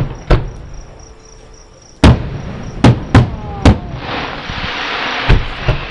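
Aerial fireworks shells bursting: a string of about seven sharp booms at uneven intervals, with a hiss building up from about four seconds in.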